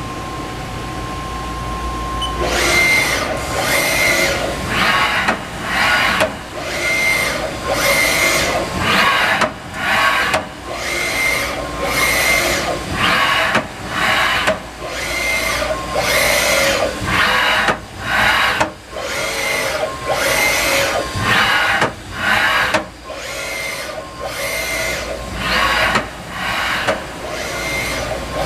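Haas Mini Lathe CNC turning center running, with a steady hum and a held tone at first. About two seconds in it changes to a repeating cycle of loud machine noise with a high tone, broken by short dips about once a second.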